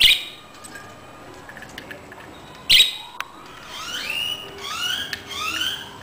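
Budgerigars calling: a sharp squawk at the start and another about two and a half seconds in, then a quick run of about five rising chirps.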